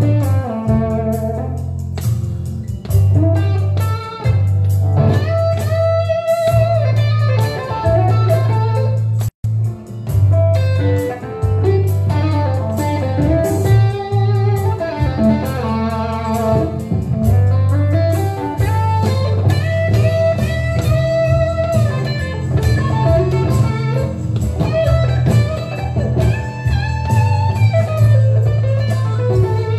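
Telecaster electric guitar playing improvised blues lead lines, single picked notes and phrases over a steady low bass part. The sound cuts out for an instant about nine seconds in.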